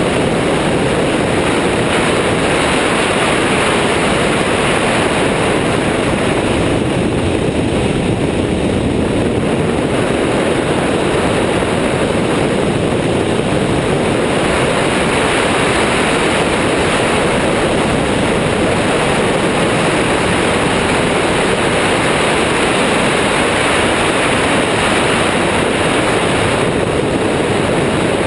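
Steady rush of wind on a wing-mounted microphone over the drone of an Airborne XT Tundra ultralight trike's engine and propeller in level flight.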